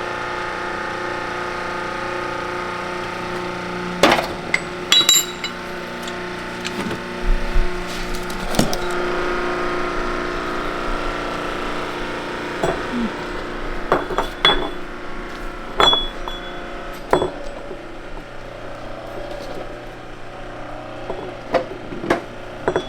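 A hydraulic shop press running with a steady hum while the broken 6th gear is pressed off an NV5600 countershaft. From about four seconds in come sharp metallic clinks and knocks of steel parts and tools, some ringing, as the hum fades.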